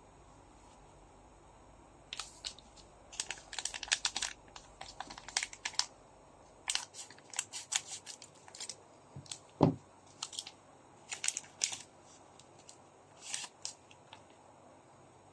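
Foil trading-card pack wrappers crinkling and tearing as they are handled and opened, in scattered bursts of sharp crackles. One dull thump comes about two-thirds of the way through.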